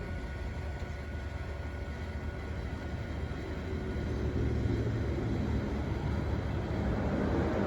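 Radio-controlled toy construction machines working, a steady low mechanical rumble with a faint motor whine that swells a little about halfway through.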